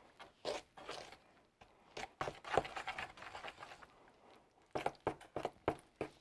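A big spoon stirring brownie mix with eggs, oil and water in a plastic mixing bowl: irregular scraping strokes against the bowl, coming in bunches, with a short pause about four seconds in.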